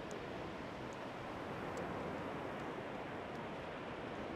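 Steady wash of sea surf breaking on a sandy beach.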